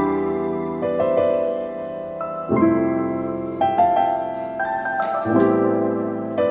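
Background piano music: slow chords and melody notes struck and left to ring, a new chord every second or so.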